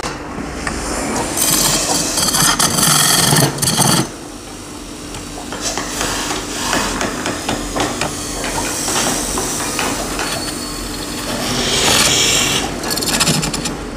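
A wooden pot spinning on a lathe while a hand-held chisel cuts into it: rough scraping and chattering of the tool on the wood, with a faint steady hum underneath. The cutting is heavier and louder in two spells, about a second in and again near the end.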